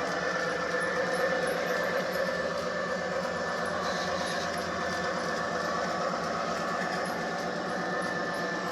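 G-scale model train running along garden railroad track: a steady mechanical running sound with a rapid fine flutter and a thin, steady high whine.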